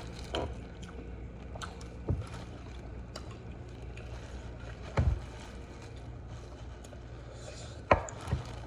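Eating sounds: a few scattered sharp knocks and clicks, loudest about five and eight seconds in, over a steady low hum.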